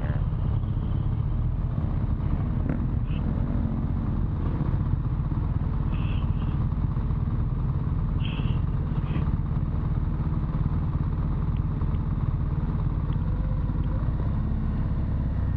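BMW R1200 GS Adventure's boxer-twin engine running steadily at low speed on a rough dirt trail, heard from the rider's own helmet camera as a constant low rumble.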